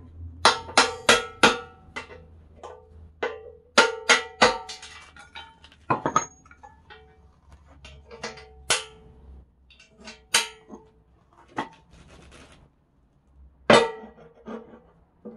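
Hammer striking a steel coupler-adapter bracket on an excavator bucket: sharp ringing clangs in quick runs of about four blows, then scattered clanks of steel on steel as the plates are knocked and set into place, with one loud clang near the end.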